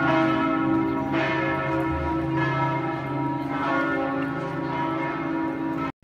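Church bells ringing, several bells overlapping, with fresh strikes about every second and their tones hanging on between them; the sound cuts off suddenly near the end.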